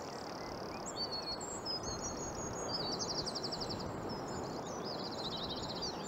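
Several birds chirping and trilling, with quick runs of repeated high notes, over a steady hiss of outdoor ambience.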